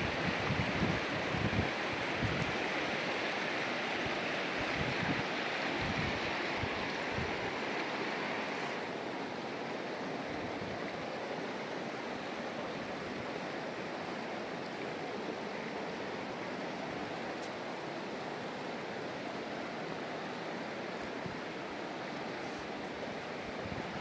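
Rushing river water, a steady hiss of rapids, with a few low thumps in the first seconds; it eases slightly about nine seconds in.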